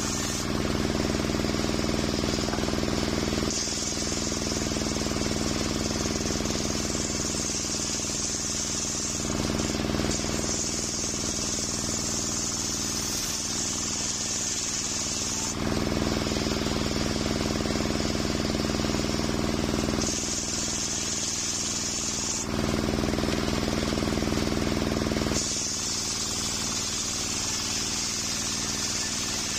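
Large circular saw bench ripping coconut wood into beams, running as a steady machine drone. Its tone shifts every few seconds, between a stronger low hum and a bright high hiss, as the load on the blade changes while the timber is fed through.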